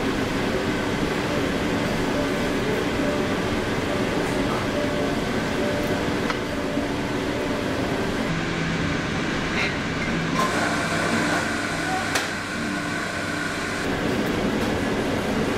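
Café background: indistinct voices over a steady mechanical hum, with a few light clicks.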